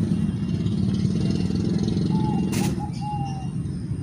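A steady low engine rumble that eases off a little under three seconds in. Partway through, a bird calls a few short notes and there is one sharp click.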